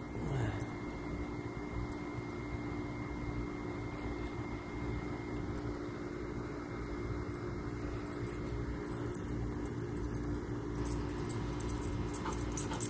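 A steady low hum with a faint high tone over it. Near the end a dog's collar tags jingle in a cluster of light metallic clicks as the dog comes close.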